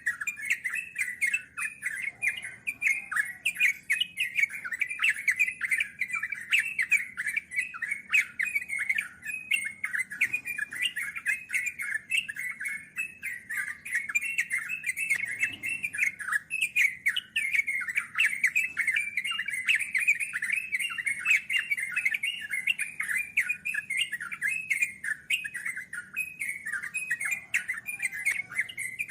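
Yellow-vented bulbuls (trucukan) chattering in a long, rapid, unbroken stream of short notes, the 'ngeropel' song.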